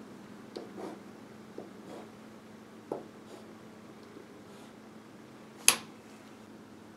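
Parallel rules and a pencil handled on a paper chart: a few soft taps and clicks, then one sharp click a little before the end, over a faint steady low hum.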